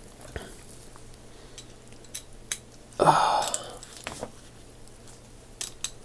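Vintage Craftsman 3/8-inch drive quick-release ratchet being handled and worked by hand. It gives scattered small metallic clicks from its mechanism, with a short rasping burst about three seconds in.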